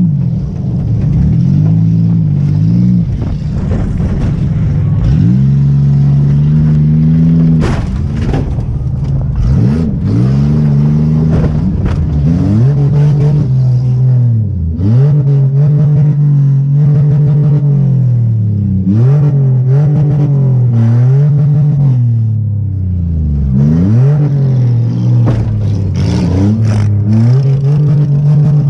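Demolition derby car's engine revving and easing off over and over, heard from inside the car, with rattles and knocks throughout and one sharp bang about eight seconds in.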